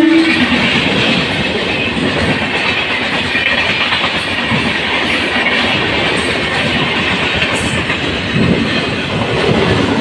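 Electric suburban multiple-unit train passing close by, its wheels on the rails making a steady, dense rumble and clatter. A train horn note cuts off just as it begins.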